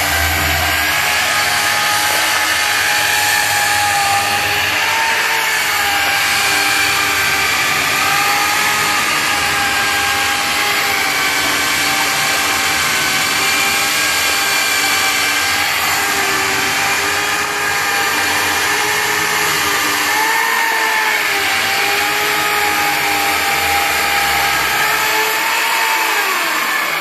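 Mafell ZSX carpentry machine's electric motor running continuously with a steady whine, working through timber. Its pitch sags briefly a few times as it takes load.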